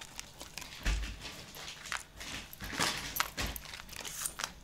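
Siberian husky chewing dried meat treats, with a few irregular crunches and clicks as it bites through them.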